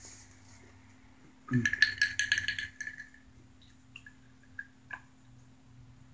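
Tabletop handling noise while eating: a soft knock, then about a second and a half of quick rattling clicks, and a few faint clicks a couple of seconds later.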